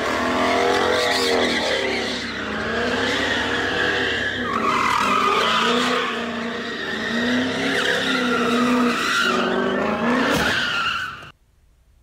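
Sports car doing donuts on a concrete parking deck, its tyres squealing continuously while the engine revs rise and fall; the sound cuts off suddenly about eleven seconds in.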